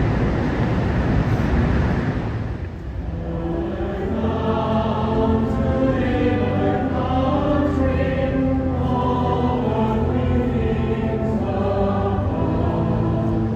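A choir singing, coming in about three seconds in and holding one note after another. The first couple of seconds are a steady rushing noise.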